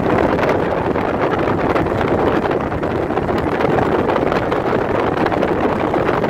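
Steady rush of wind and road noise from a car moving along at speed, even throughout with no breaks.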